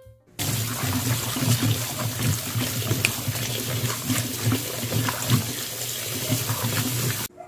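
Kitchen tap water running into a plastic basin of vegetables, with hands swishing and rubbing green chilies, eggplant and leafy greens clean, and small splashes and knocks among them. It starts abruptly about half a second in and cuts off abruptly near the end.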